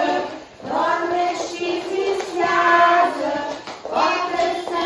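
Young children singing a ring-game song together with adult women's voices, in sung phrases with two short breaks between them.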